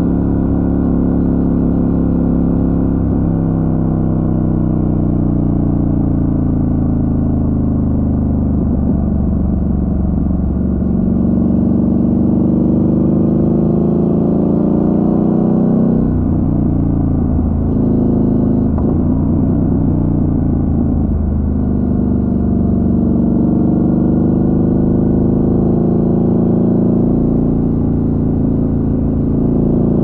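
Motorcycle engine running under way on a winding road, its pitch falling and rising as the rider shifts and rolls the throttle, with several quick changes in the middle and a climb near the end.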